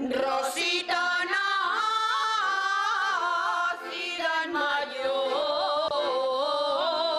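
A group of women singing a Riojan jota together, drawing out long ornamented notes with vibrato and briefly pausing for breath midway between phrases.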